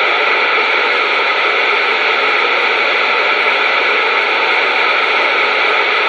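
CB radio receiver hiss: steady band static through the radio's speaker, with no station coming through.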